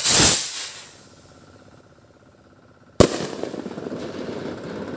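A small stick rocket firework launching with a loud hiss that dies away within about a second. About three seconds in comes the sharp bang of its burst in the air, with a rumbling echo trailing on after it.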